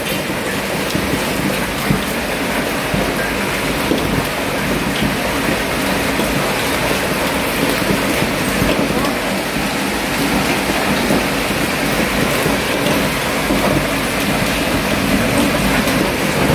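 Heavy thunderstorm downpour of rain and hail, a dense steady hiss of countless small hits on the street and balconies, growing slightly louder toward the end.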